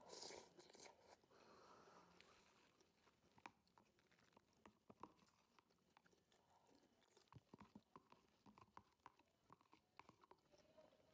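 Faint close-up eating sounds: chewing in the first second or so, then a run of light clicks and scrapes from a spoon working around a clear plastic soup container as it is tipped up to drink.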